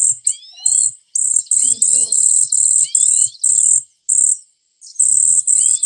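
Recorded cedar waxwing calls played back over a speaker: a rapid run of very high, thin notes, about three to four a second, with lower sliding whistle notes mixed in and a short break about four and a half seconds in.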